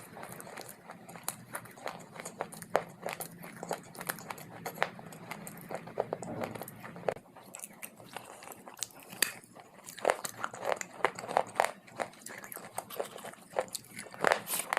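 Close-miked crunching and chewing of hard, dry clay pieces: a run of sharp, irregular crunches, coming thicker and louder in the last few seconds.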